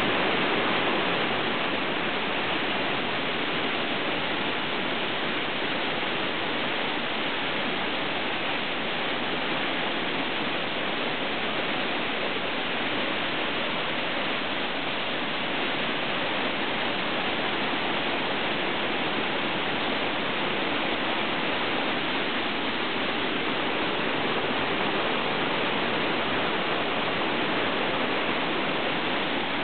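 Small forest waterfall cascading over rocks: a steady, unbroken rush of falling water.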